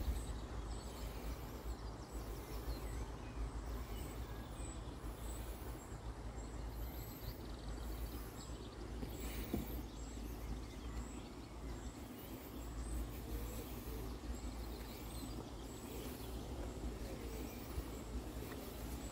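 Outdoor ambience: faint birdsong and chirps over a steady low rumble.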